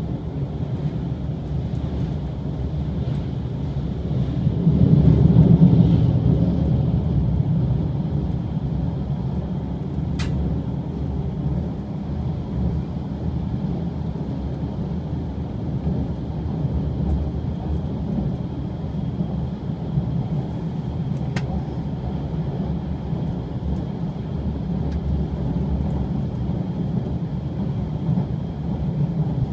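Cabin noise inside a Shiokaze limited express electric train running at speed: a steady low rumble of wheels on rail, swelling louder for a couple of seconds around five seconds in. Two brief sharp clicks come about ten and twenty-one seconds in.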